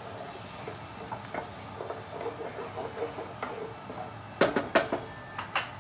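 Shallots sizzling gently in oil in a pan, with soft stirring ticks. A few sharp knocks sound about four and a half seconds in and again near the end.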